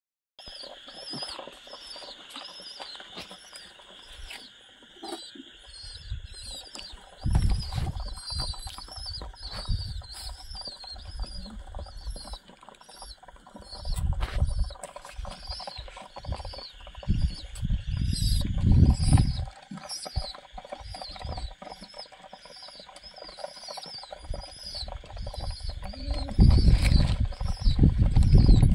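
A flock of domestic pigeons crowding over scattered grain, with bursts of wing flapping that are loudest near the end. A high chirp repeats steadily behind them.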